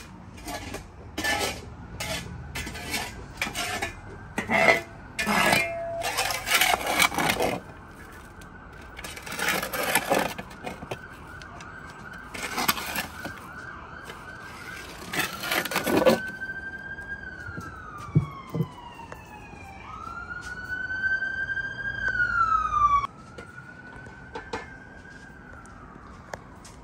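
A metal shovel scrapes and scoops ash out of a brick fire pit in repeated strokes through the first half. From about halfway, a siren wails, its pitch rising and falling several times.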